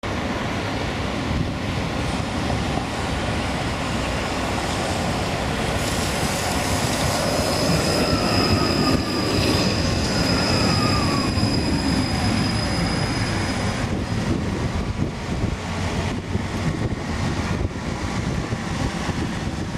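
Modern low-floor electric tram rolling in and passing close by on its rails. It gives a high steady whine for several seconds and a lower whine that falls in pitch as it goes by. Clicks and rattles follow from the wheels and body near the end.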